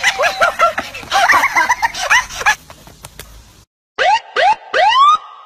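Three quick rising whoops of a siren-type sound, each sweeping sharply up in pitch, evenly spaced. They come after a brief silence, with voices before it.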